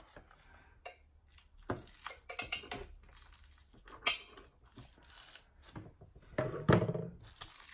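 Handling sounds of small stick-on rubber pads being worked out of their plastic packaging: scattered light clicks, taps and rustles, with a louder bump near the end.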